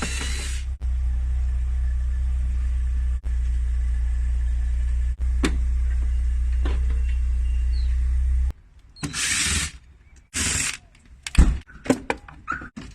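A power screwdriver's motor running with a steady low hum while the back panel and boards of an inverter refrigerator are unscrewed. It stops suddenly about two-thirds of the way through, followed by a few short bursts of clattering as parts are handled.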